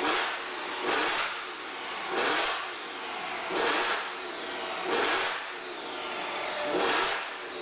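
Supercharged V8 engine of a Mercedes CLS63 on a chassis dyno, revving in about six surges a little over a second apart.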